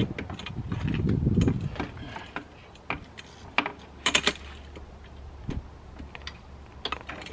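Close rustling and brushing against the microphone, then a few scattered sharp metallic clicks and clinks of hand tools working on the ATV's bolts.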